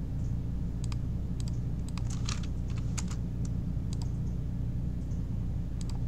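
Computer keyboard keystrokes and clicks, a dozen or so scattered taps at uneven intervals, over a steady low hum.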